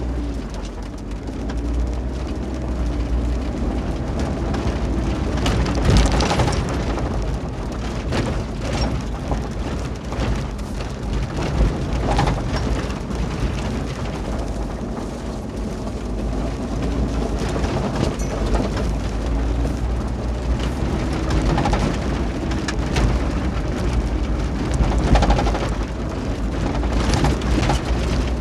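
Cabin noise of a Kia 4x4 driving over a rocky gravel road: a steady low rumble of tyres and suspension under the engine, with constant clattering of stones and jolts, and louder bumps about six, twelve and twenty-five seconds in.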